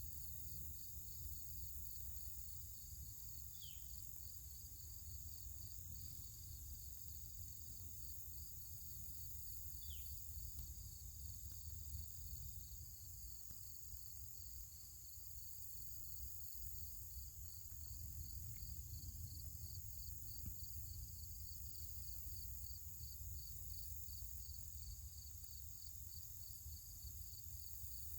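Outdoor insect chorus: a steady high buzz with a rhythmic chirp repeating a few times a second, over a faint low rumble. Two short, falling chirps stand out, about 4 and 10 seconds in.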